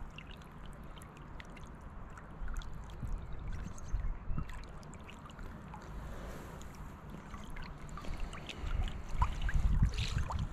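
River water lapping and splashing close by, with scattered small splashy clicks. Irregular low rumbling buffets come and go and are loudest near the end.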